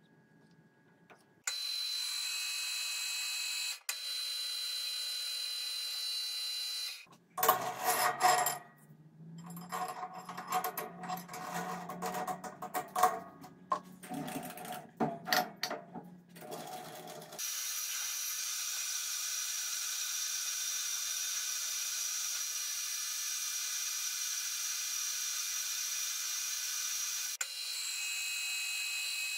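Metal lathe running steadily, with about ten seconds of irregular knocks and clatter in the middle. Near the end the spinning rod is being fed into a threading die held on the tailstock.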